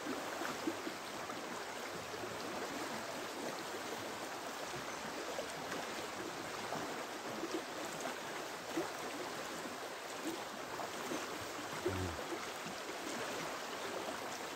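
Shallow river running steadily over a stony bed, an even rushing of water. A soft low thump about twelve seconds in.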